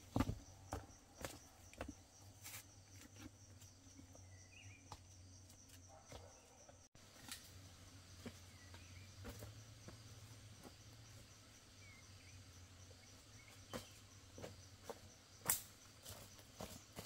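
Faint forest ambience: a steady high insect drone, a few short bird chirps, and scattered rustles and snaps of footsteps through leaves and undergrowth, with one sharper snap near the end.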